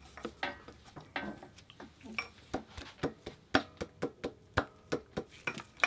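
Light metallic clicks and clinks of a Perrin crank pulley being seated onto the keyed crankshaft snout of a Subaru EJ boxer engine, with its centre bolt handled and started by hand. The clicks are irregular at first and settle into an even run of about four a second in the second half.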